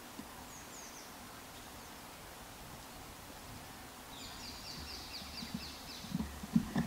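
Faint outdoor ambience with a small bird chirping once early and giving a quick, rapid trill about four seconds in. Near the end a red deer stag starts roaring during the rut, a low, pulsing grunting call that is the loudest sound.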